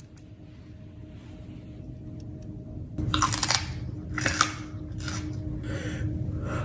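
Someone biting into and chewing a crunchy pickle: after a quiet start, a series of wet crunches comes about once a second.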